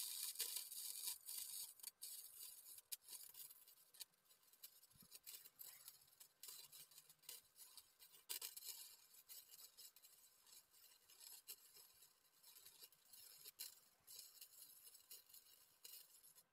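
Faint, steady crackle and sizzle of a Lincoln 100-amp MIG welder running flux-core wire as a weld bead is laid, with irregular pops through it. It cuts off suddenly at the end as the arc is broken.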